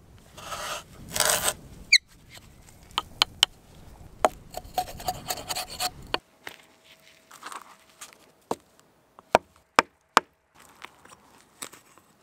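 Hand woodworking on a stick: rasping scrapes as a twist drill bit is turned into the end of the stick, then a run of separate sharp clicks and taps as a knife blade works the wood.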